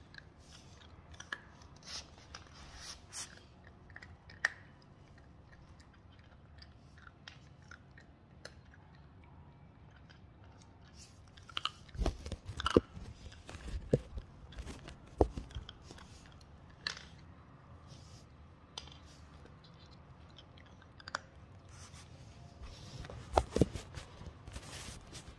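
A Yorkie puppy chewing and crunching a snack close to the microphone: scattered small crunches at first, louder bunches of crunches about halfway through and again near the end.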